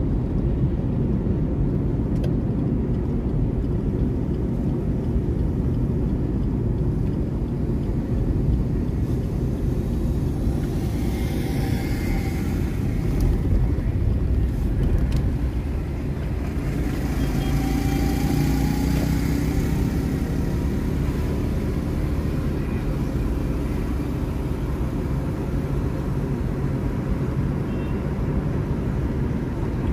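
Steady low road and engine noise inside a moving car's cabin, with other vehicles passing by about a third of the way in and again a little past halfway.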